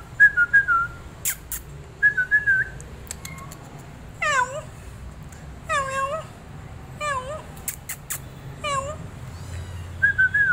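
Persian kittens mewing, four high calls that each fall steeply in pitch, coming about every second and a half from about four seconds in. Before them come a few short whistled notes and some sharp clicks.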